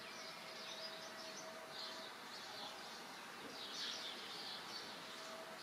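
Faint chirping of small songbirds in short, scattered calls, a little stronger about two seconds in and again near four seconds, with a thin steady hum underneath.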